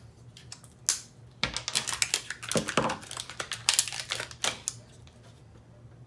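Sharp plastic clicks and rattles as a two-part 5-minute epoxy syringe is uncapped and handled with its clear plastic blister pack on a wooden table. The clicks come thick and fast from about a second in until nearly five seconds in.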